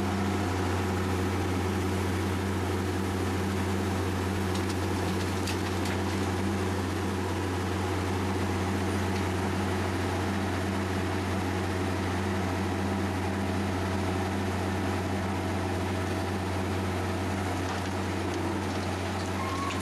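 Matisa R 21 ballast regulator's diesel engine running with a steady low hum as the machine creeps along the track working the ballast.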